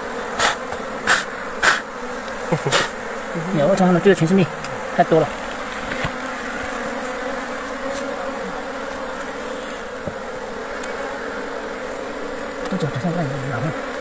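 Honeybees buzzing steadily around a wild nest as its combs are broken out by hand. A few sharp clicks from handling come in the first three seconds, and a voice is heard briefly about four seconds in and again near the end.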